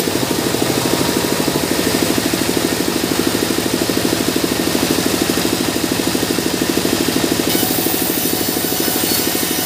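Sawmill band saw running with a steady drone that pulses rapidly and evenly. From about three-quarters of the way in, a high hiss joins it as the blade rips a mahogany plank lengthwise.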